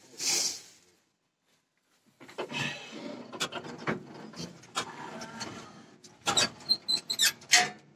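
Rustling and scraping of hands and alfalfa debris in a hay baler's metal bale chamber, with several sharp clicks and knocks near the end.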